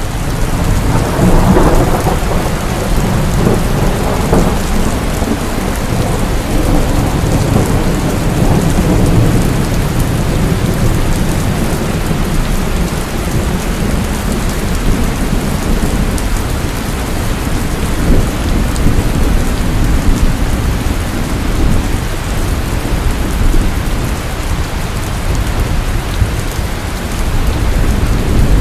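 Heavy rain pouring steadily with thunder rumbling through it. A low rumble swells about a second in and fades over the next few seconds, and another deep rumble builds near the end.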